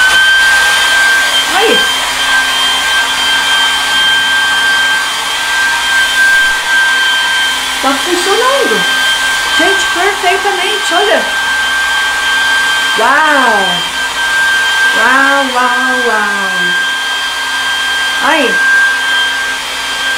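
Compact travel hair dryer running steadily, blowing air with a high motor whine over the rush of air, working normally.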